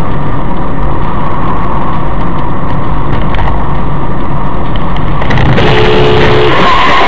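Car on the move recorded by a dash cam: loud, steady engine and road noise. About five and a half seconds in, a car horn sounds as a flat two-note tone for just under a second.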